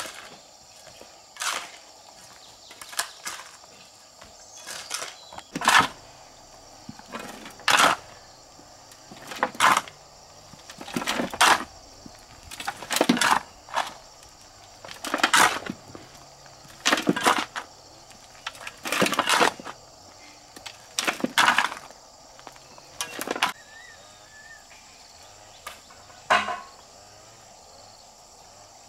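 Repeated rough scraping strokes of manual work, about one every one to two seconds and often in pairs, over a steady high chirring of insects.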